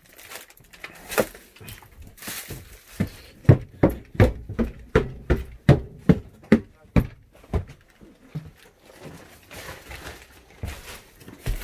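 Footsteps thudding up wooden stairs and across floorboards, a run of about a dozen steps at roughly three a second through the middle, with lighter knocks and shuffling around them.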